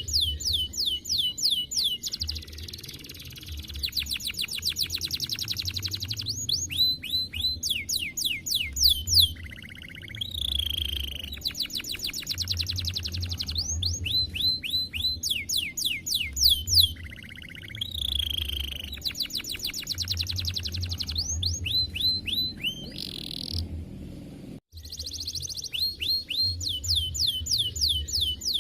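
Domestic canary singing a long, continuous song of rapid trills and rolls, fast runs of repeated high notes and sweeping phrases. It drops out for a moment about three-quarters of the way through.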